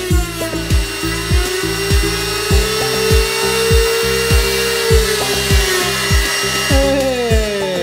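Background electronic music with a steady drum beat, nearly three beats a second, over the sound of a CNC machine's spindle-driven drill bit boring into an MDF board.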